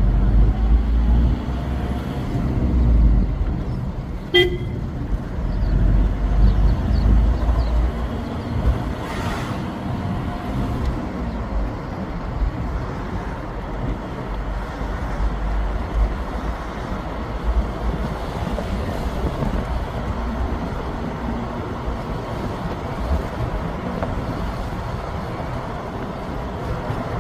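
Outdoor vehicle noise with a single short horn toot about four seconds in, over a heavy low rumble that eases after about eight seconds.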